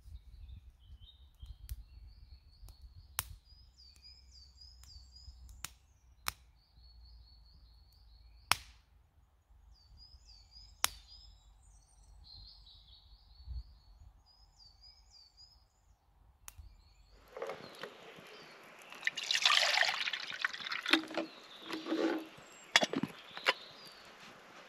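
Split kindling burning in two small steel and titanium twig stoves: scattered sharp pops and crackles, with a bird singing in high repeated warbles. About two-thirds in, the crackling and hissing of the flames becomes much louder and closer, with dense pops.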